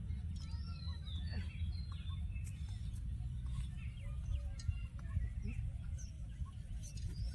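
Scattered bird chirps and short calls over a low, steady rumble.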